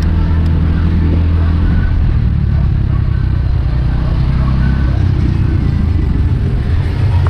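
Motor scooter engine running steadily while riding.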